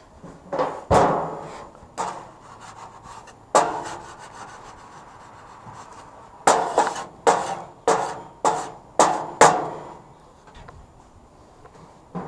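Barbecue grill being cleaned: a series of short, sharp scraping strokes, a few spaced out at first, then six in quick succession about half a second apart.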